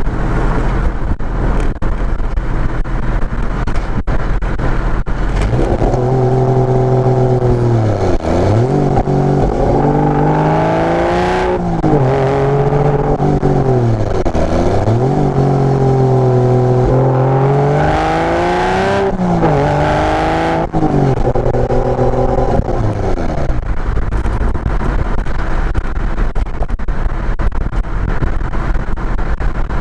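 Porsche Boxster engine through a tuned exhaust: a low steady rumble, then from about six seconds in a strong engine note whose pitch climbs and drops several times as the revs rise and fall. Near the end it settles back to the low rumble.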